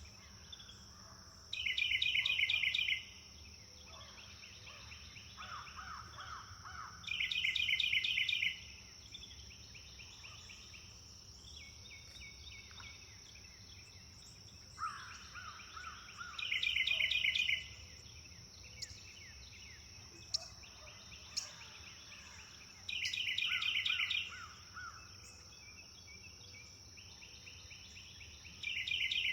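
Birds singing in a natural chorus: one bird repeats a loud, fast trilled song lasting about a second and a half, roughly every six seconds, while another answers with shorter runs of lower notes. A steady high-pitched hum and a low rumble run underneath.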